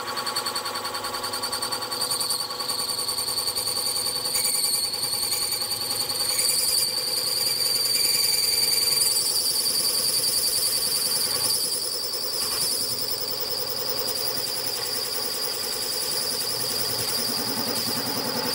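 Milling machine spindle running a boring head through a finishing cut in a metal plate, hand-fed down slowly on the fine feed: a steady high-pitched whine over the machine's hum, loudest about halfway through.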